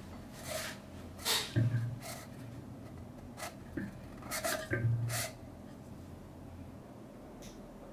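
A woven lamp wick rubbing and scraping as it is worked by hand into a brass oil-lamp burner tube, with light clicks of the brass parts and two dull bumps about a second and a half and five seconds in.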